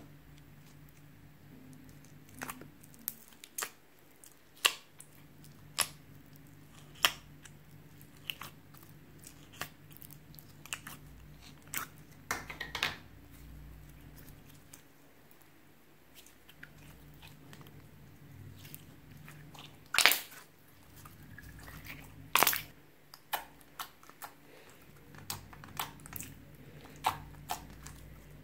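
Slime being pressed and stretched by hand, giving irregular sticky pops and clicks, with two louder pops past the middle.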